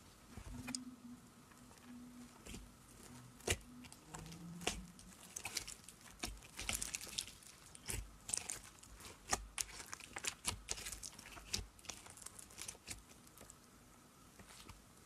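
Hands poking, squeezing and stretching clear glitter slime, making a quick run of sticky clicks and small crackling pops that grows busier after the first few seconds.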